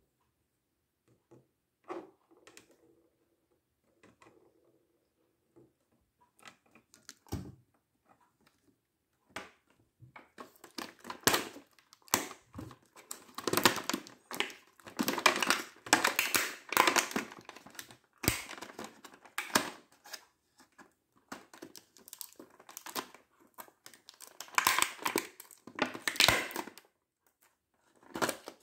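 Clear plastic blister tray crinkling and crackling as small action-figure accessories are pried out of it. A few scattered clicks and a single knock at first, then dense crackling from about ten seconds in.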